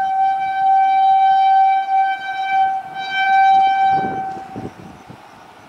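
WAP7 electric locomotive's horn sounding one long blast of a single steady note, wavering slightly midway and stopping about four and a half seconds in.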